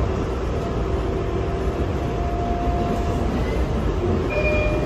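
R142A subway car running along the track, heard from inside the car: a steady rumble of wheels on rail. A faint thin tone comes in about two seconds in, and brief higher tones sound near the end.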